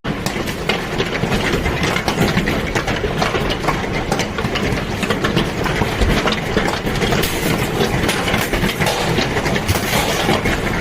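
Heavy hailstorm: a dense, continuous clatter of countless hailstones striking hard surfaces.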